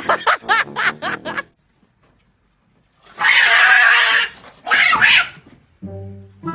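A cat's quick rising-and-falling cries, then after a short pause two loud, harsh hisses, the first about a second and a half long.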